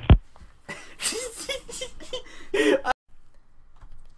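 A loud thump right at the start, then a person laughing for about two seconds, cut off abruptly about three seconds in.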